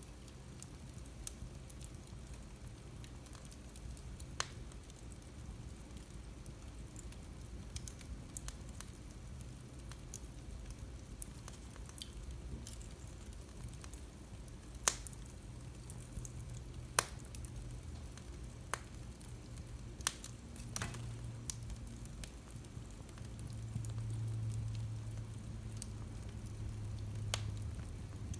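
Wood fire crackling in a fireplace: scattered sharp pops and snaps, some much louder than others, over a low steady rumble that swells for a few seconds near the end.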